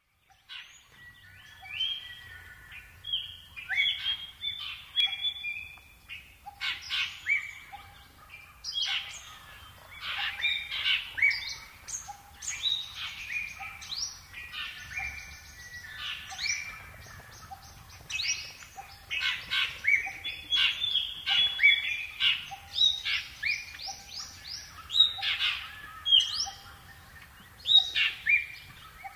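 Several birds chirping and singing, with many short, overlapping calls and trills throughout, and a faint lower note repeating at a steady pace beneath them.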